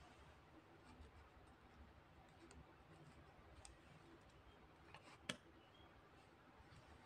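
Near silence: room tone, with a few faint ticks and one sharp click about five seconds in.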